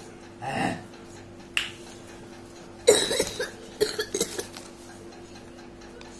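A short cough, then a few sharp crackles and taps from hands handling and folding paper, the loudest cluster about three seconds in.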